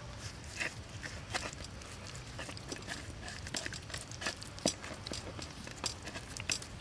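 Hands rubbing salt into raw pork ribs on a wooden cutting board: a run of short, irregular wet squishes and slaps of the meat.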